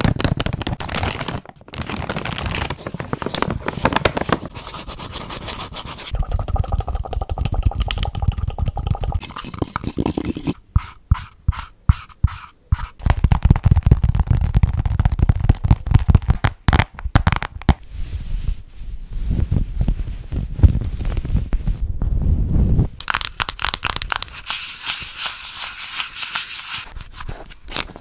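Close-miked ASMR trigger sounds changing every couple of seconds: hands crinkling and scratching a plastic detergent refill pouch, then tapping and scratching a run of small objects, including a leopard-print pouch and a plastic cup. About halfway through there are stretches of quick fingernail tapping.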